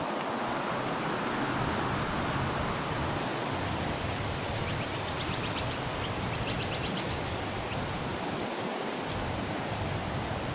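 Steady rushing noise, with a brief run of faint, rapid, high-pitched ticks about halfway through.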